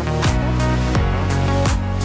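Electronic background music with a steady beat: a deep drum hit about every 0.7 s under sustained synth tones.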